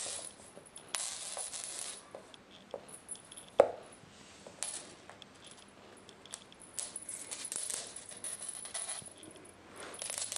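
Kittens' paws and claws clicking and skittering on laminate flooring as they pounce on a feather toy, with one sharp knock about three and a half seconds in.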